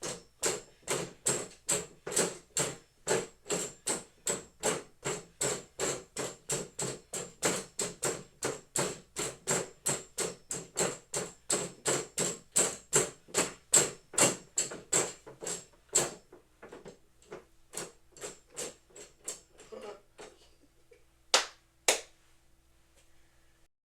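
Rapid, evenly spaced punches on a boxing training target, about three or four a second. After about sixteen seconds they turn fainter and more scattered, and two sharp loud knocks come near the end.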